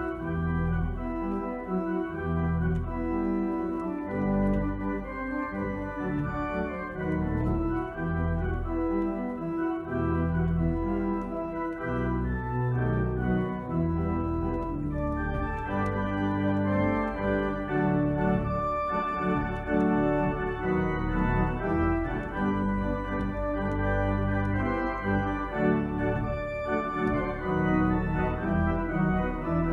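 Organ playing sustained chords over a moving bass line, the chords changing every second or so.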